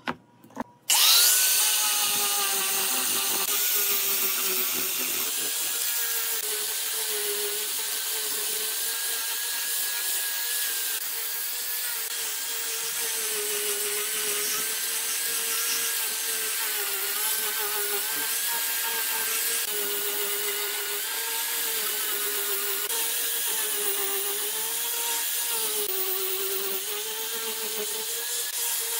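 Electric angle grinder with a sanding pad starts up about a second in after a couple of small clicks, then runs steadily while sanding the face of a pine board. Its motor whine dips and recovers over and over as the disc is pressed into the wood and moved across it.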